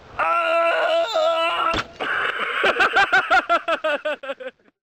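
A man's voice crying out: a long yell held at a steady pitch, a sharp knock a little under two seconds in, then a broken cry of about five quick pulses a second that fades away.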